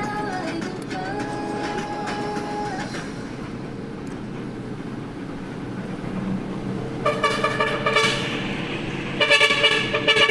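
Steady rumble of a bus underway, with a vehicle horn sounding twice: one blast about seven seconds in lasting about a second, and a second blast near the end.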